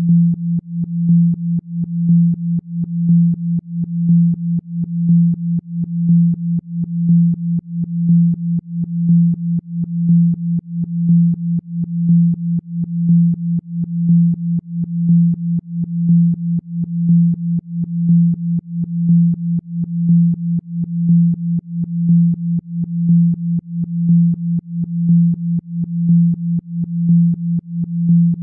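Electronically generated pure tone, a low pitch near 180 Hz, presented as a Rife healing frequency for spine regeneration. It holds one pitch throughout and pulses in level in a regular rhythm, with a stronger swell about once a second.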